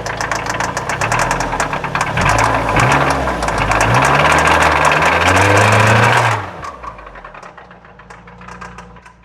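2004 Mazda Miata's 1.8-litre four-cylinder engine revved in several rises and falls, then dropping back to idle a little after six seconds in, with a rapid metallic clicking running through it. The owner suspects the valves, or something worse, after the engine was run low on oil.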